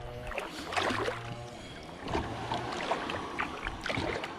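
Water splashing and sloshing in irregular bursts around a small boat. A low hum runs under it through the first half.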